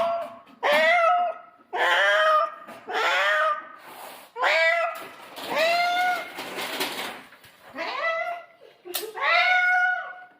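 Domestic cat meowing loudly and insistently, about seven meows in a row, one drawn out longer near the middle, the sound of a cat excited by the smell of fish.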